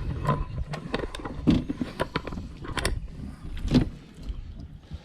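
Irregular clicks, knocks and rattles of fishing gear being handled in a boat, over a low rumble.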